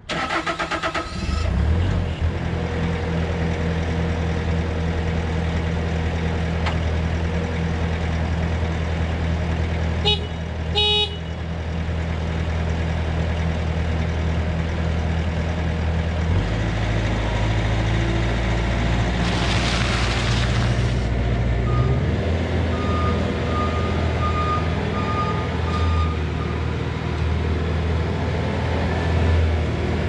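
Bobcat S590 skid steer's diesel engine starts up and runs steadily. Its engine note rises for several seconds midway, then settles back. A brief horn-like beep sounds about ten seconds in, and short intermittent beeps come a little past the middle.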